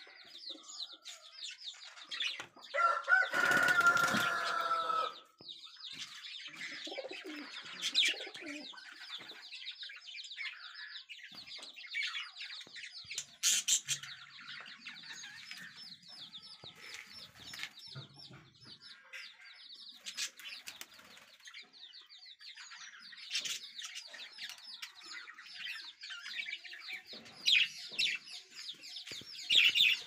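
A flock of caged budgerigars chattering with rapid high chirps throughout, with a few short wing flutters. About three seconds in, another bird gives a louder, lower, drawn-out call lasting about two seconds.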